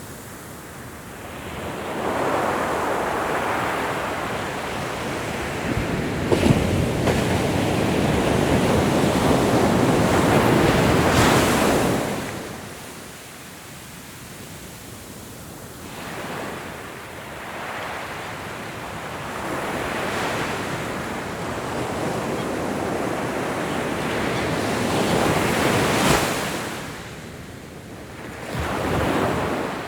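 Ocean surf: waves breaking and washing in slow surges, one long loud surge through the first half, then several smaller ones with quiet lulls between.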